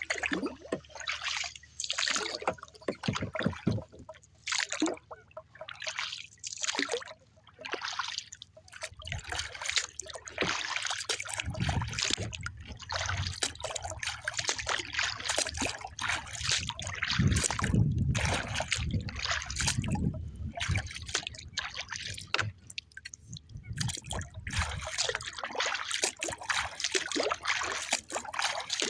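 Water splashing and lapping irregularly against a kayak's hull on choppy water, with wind rumbling on the microphone from about nine seconds in.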